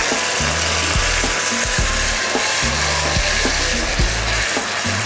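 Sizzling as white wine is poured into a hot pot of caramelised onions, deglazing it. Background music with a steady beat plays underneath.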